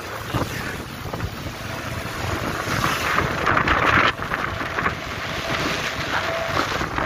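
Wind buffeting the microphone of a camera on a moving motorcycle, over the motorcycle's engine and road noise. The rush swells louder about three seconds in and cuts off suddenly a second later.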